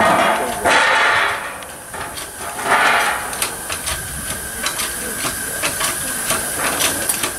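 Miniature live-steam locomotive letting off steam in two hissing bursts, a long one in the first second or so and a shorter one about three seconds in. Scattered light clicks follow.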